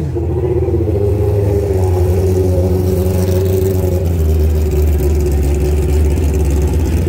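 A vehicle engine running loudly at a steady speed, with a strong low rumble and an even, unchanging pitch.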